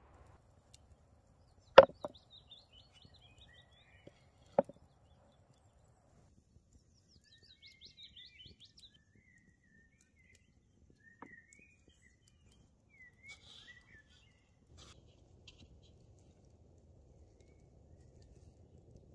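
Two sharp knocks: the first and loudest about two seconds in, a second a few seconds later. Small birds chirp and trill at intervals after them.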